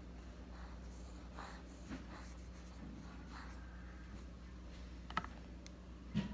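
Mechanical pencil graphite scratching across college ruled notebook paper in short cursive strokes, with two sharp clicks near the end.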